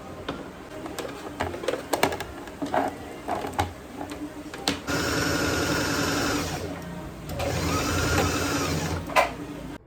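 A small electric motor appliance runs in two bursts of about two seconds each, after a run of light clicks and knocks, and a sharp click follows near the end.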